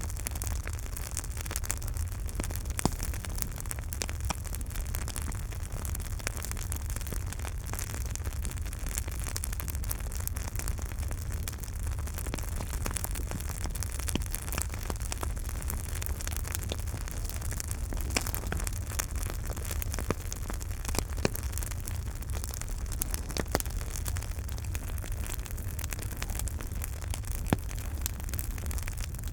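Campfire burning: wood crackling with many small snaps over a steady low rumble of the flames, and a handful of sharper, louder pops scattered through.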